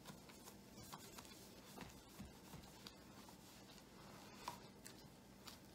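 Faint rubbing and scuffing of a cleaning cloth wiping a flat-panel computer monitor's casing, with small taps as the hand moves over it and one sharper tap about three-quarters of the way through.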